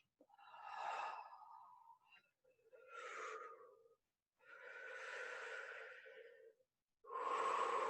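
A woman breathing audibly and deeply into the microphone: four long, breathy breaths in and out, with short pauses between them.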